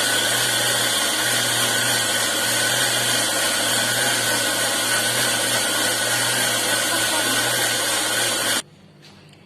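Electric mixer grinder (mixie) running steadily at full speed, blending eggs, oil, curd and powdered sugar into cake batter. It switches off and stops abruptly near the end.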